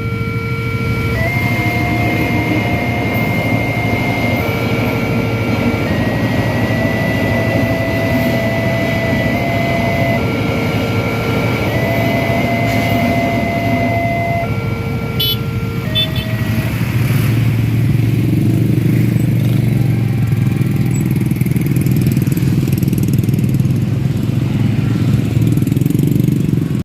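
Railway level-crossing warning siren sounding steady electronic tones that jump between pitches every second or two, a siren said to be malfunctioning, over the running engines of motorcycles and road traffic. About 16 seconds in the tones stop and the traffic engines carry on, a little louder.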